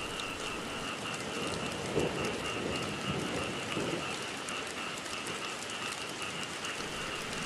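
Steady rain falling on wet ground and leaves, with a steady high-pitched drone underneath.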